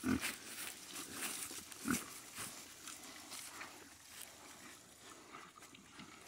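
Young pigs grunting briefly, twice: once just after the start and again about two seconds in, over a light crackling and rustling as they root and graze in the grass.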